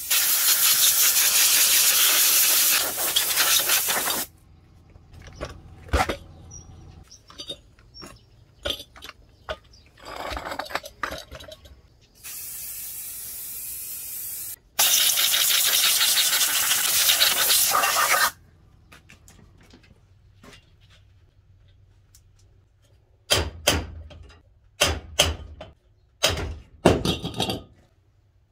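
Aerosol cleaner spray can hissing in long bursts onto a greasy transmission case, two of them about three and a half seconds each with a shorter, quieter one between, and a few small clicks in the gaps. Near the end, several short loud noises follow one another.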